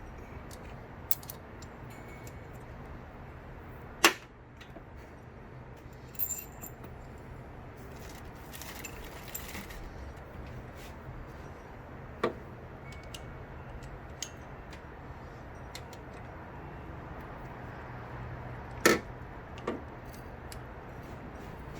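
Metal tools and engine parts clinking and clanking now and then, about six sharp clinks with the loudest about four seconds in and near the end, over a steady low hum.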